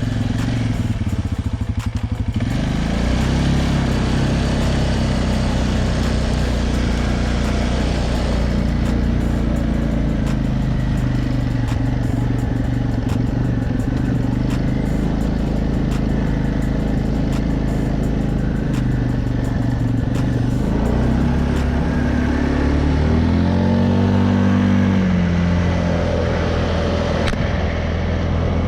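TGB Target 550 quad's engine running on a test ride: a lower note for the first couple of seconds, then it picks up and holds a steady pitch, and near the end it rises and falls several times with the throttle.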